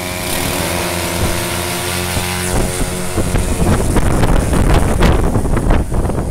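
Homemade propeller-driven rail trolley: its small engine runs steadily, then revs up about two and a half seconds in as the trolley pulls away. The propeller blast buffets the microphone.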